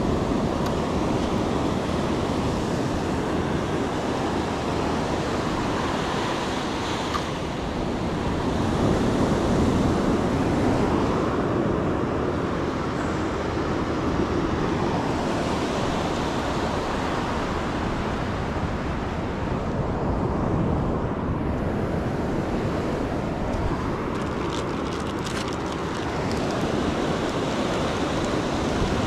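Ocean surf breaking and washing up the beach in a steady rush that swells and eases slowly, with some wind rumble on the microphone.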